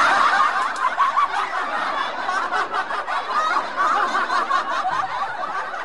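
Laughter: a steady stretch of giggling and chuckling.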